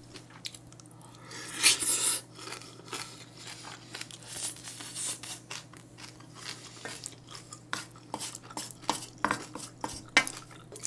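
Wooden spoon scraping and knocking against a large stainless steel mixing bowl as bibimbap is stirred and scooped. There are irregular short clicks and scrapes, and a louder scrape about two seconds in.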